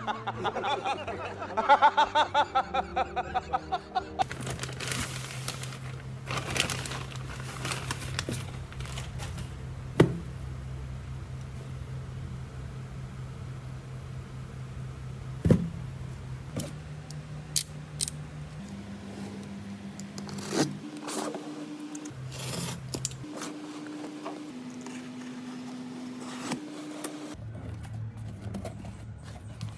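Soft background music of sustained low notes that step to a new pitch every few seconds, with scattered sharp clicks and a few scrapes from tools working on a cracked smartphone.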